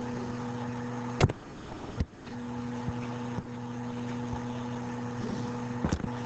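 Steady low electrical hum from the recording setup, with a few sharp clicks. The hum cuts out for about a second after the first click, then returns.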